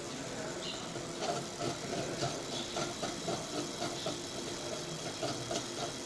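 Fiber laser marking machine running while it colour-marks stainless steel: a steady hum with a fast, uneven buzzing chatter as the beam traces the design.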